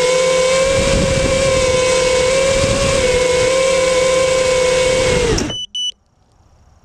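A loud, steady, shrill pitched tone, wavering slightly, cuts off abruptly about five and a half seconds in. Two short high beeps follow just after.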